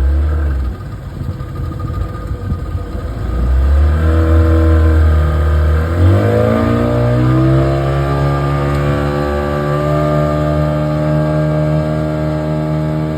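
Boat engine running, then speeding up about six seconds in, its pitch rising and holding steady at the higher speed.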